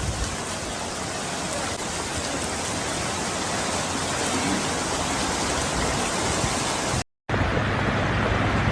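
Steady rushing noise of heavy rain and floodwater in a flash flood. About seven seconds in it cuts out for a moment, then resumes with a deeper rumble.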